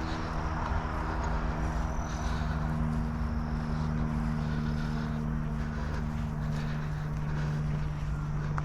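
A motor or engine running steadily nearby: a constant low hum with a few overtones and no change in pitch.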